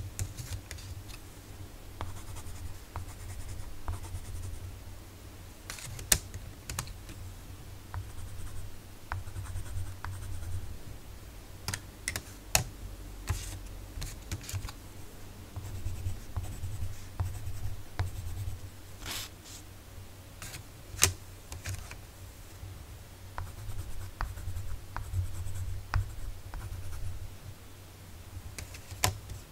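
Coloured pencils in use: irregular small clicks and taps of pencils being handled and set down, with some pencil scratching on paper.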